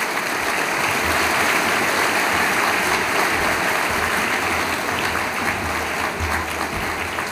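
A large audience applauding steadily, building over the first second and easing slightly toward the end.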